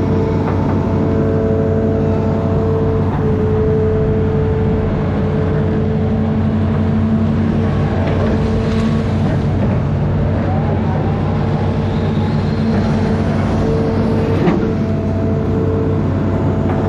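Amphibious excavator's diesel engine running steadily under load, with a high whine that breaks off and returns several times and a single knock near the end.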